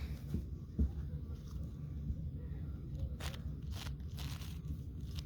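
A 5x5 puzzle cube being turned by hand: irregular plastic clicks and clacks as its layers snap round, over a low rumble of handling noise.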